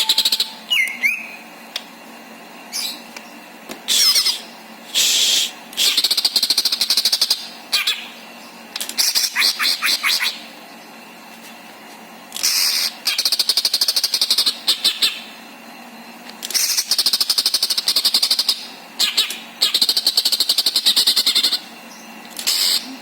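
Cucak ijo (green leafbird) singing in loud bursts of rapid, rattling trills and chatter with short pauses between them, running through its repertoire of learned phrases; about a second in, one phrase is a downward-sliding whistle.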